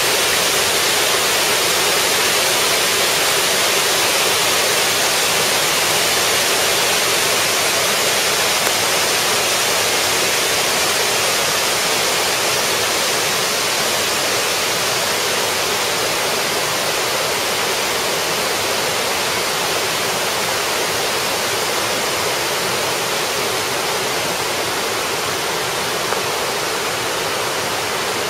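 Fukiryu Falls, a multi-tiered waterfall, rushing steadily as its water drops in many small cascades onto rock, with a bright, hissy sound.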